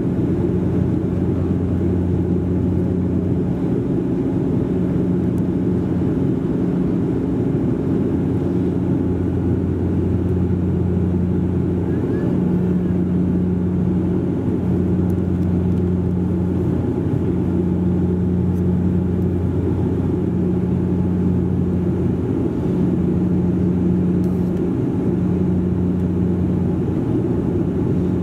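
Cabin noise of a Bombardier Dash 8 Q400 turboprop airliner in the climb, heard from a seat beside the wing: the steady drone of its propellers, a low hum with a second tone above it that swells and fades every second or two, over a constant rush.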